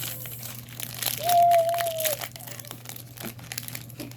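Foil trading-card booster pack wrappers crinkling and being torn open, with quick crackles throughout. About a second in, a short steady high-pitched sound rises above them for about a second.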